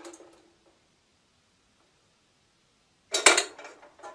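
Paraffin wax chunks dropping from a plastic bowl into a small saucepan of oil: a brief clatter with a short ring from the pan. About three seconds in comes a louder clatter of several metal knocks and clinks as the small saucepan is set into a larger stainless steel pot of water, a water bath for melting the wax.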